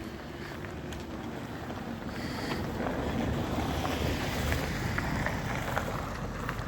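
Wind rumbling on the microphone, a low noisy buffeting that grows louder through the middle, with a few faint clicks.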